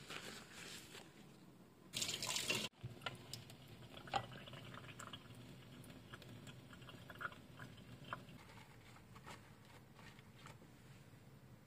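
Faint handling noises: a short rush of noise about two seconds in that cuts off abruptly, then scattered light ticks, taps and drip-like sounds.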